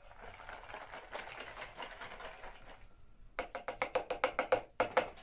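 Wire whisk beating batter in a ceramic bowl: soft whisking at first, then from about three seconds in a fast, even run of clicks, about eight or nine a second, as the wires strike the bowl's side.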